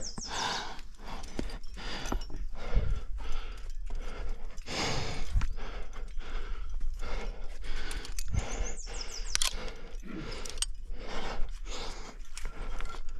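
A rock climber breathing hard under exertion, short puffs of breath one after another, with a couple of sharp clicks.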